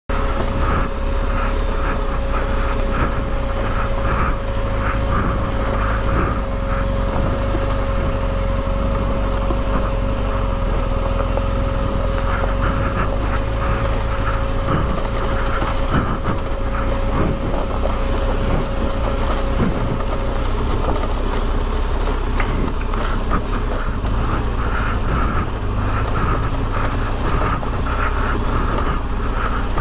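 BMW R 1250 GS boxer-twin motorcycle being ridden, engine running steadily under wind rush on the microphone, with scattered knocks and rattles. A steady hum runs alongside and stops about two-thirds of the way through.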